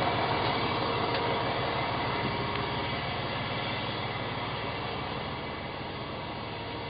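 Semi truck's diesel engine idling steadily with an even low pulse, growing gradually fainter.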